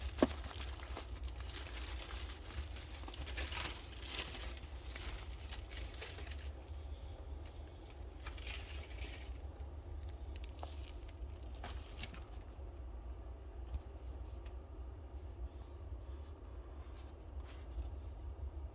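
Packaging being handled, torn and crinkled during an unboxing, with one sharp click near the start. The rustling dies down after about six seconds, leaving a few light clicks and taps over a low steady hum.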